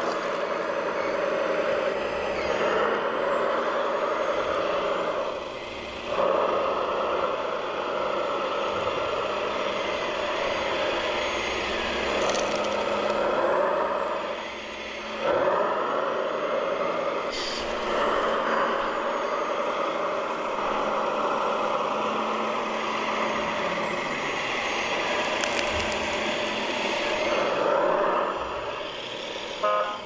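Radio-controlled scale wheel loader and articulated dump truck at work, their electronic sound units giving a steady simulated truck-engine drone. The drone dips briefly about three times.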